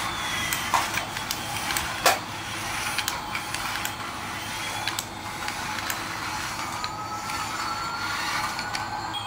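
Toy Airbus A380 airliner running across a tiled floor, its small motor and wheels whirring steadily, with scattered sharp clicks (the loudest about two seconds in). A faint whine rises slowly near the end.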